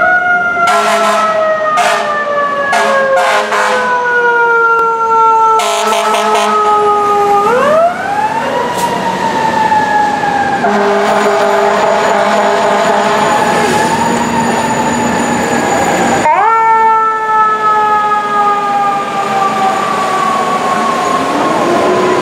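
Fire apparatus mechanical siren, the Federal Q type used on FDNY rigs, winding down slowly over about seven seconds. It is revved back up at about eight seconds, held, revved again at about sixteen seconds and left to wind down. Several short sharp blasts sound over it in the first six seconds.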